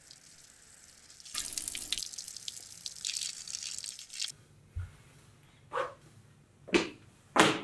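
A stream of liquid hissing and splashing for about three seconds, staged in the skit as one man urinating over a urinal partition onto another. A few short, sharp sounds follow near the end.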